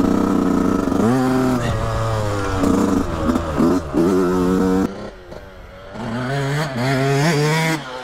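Motocross bike engine heard up close from the bike, revving hard with its pitch climbing, dropping and climbing again as it is shifted up through the gears. The throttle closes a little past halfway, then opens and the revs rise again near the end.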